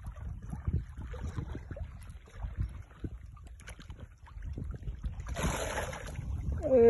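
Wind buffeting the microphone, with scattered low thumps throughout. About five seconds in comes a second of splashing: a hooked fish thrashing at the surface near the bank.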